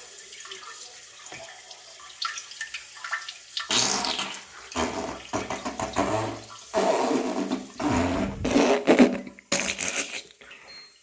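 Toilet and pooping sound effect: a faint steady trickle of running water, then from about four seconds in a string of loud, irregular wet farting and spluttering noises.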